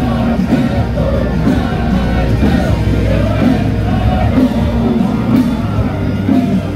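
Loud music with a singing voice over a steady bass line.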